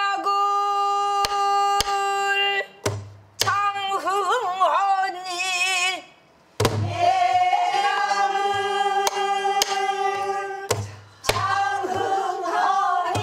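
A woman singing a danga in pansori style, with long held notes that waver and bend in pitch, over a buk barrel drum keeping the rhythm. The drum gives a deep thud every few seconds, with sharp clicks in between.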